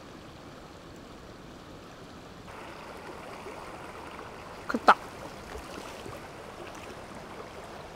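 Shallow stream water running steadily, a little louder from about two and a half seconds in. About five seconds in, a person gives one short exclamation.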